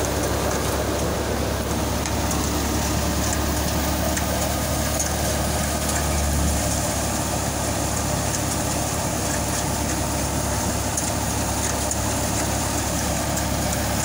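Wheat thresher running steadily, a loud continuous mechanical drone with a low hum underneath.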